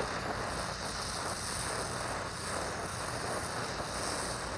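Oxy-fuel torch flame hissing steadily as it heats steel for bronze brazing.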